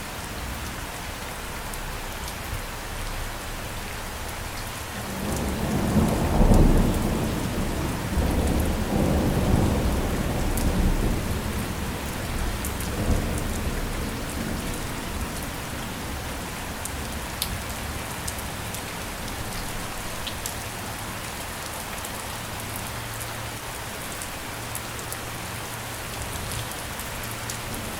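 Steady heavy rain with individual drops ticking. A roll of thunder rumbles in about five seconds in, is loudest a second or so later, and fades out over the next several seconds.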